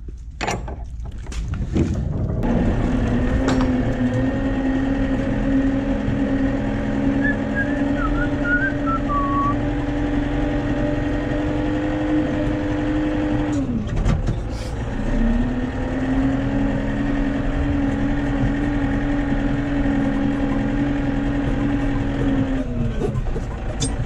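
Tractor diesel engine running at a steady speed, its pitch dropping briefly about halfway through and again near the end. A few knocks come in the first two seconds.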